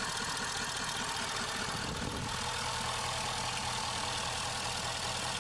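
A Ford 6.7 Powerstroke V8 turbo-diesel idling steadily.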